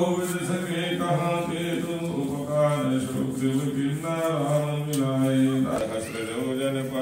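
A man's voice chanting Hindu mantras in long, steady held phrases with short breaks for breath: the priest's recitation for the prana pratishtha consecration of a Hanuman idol.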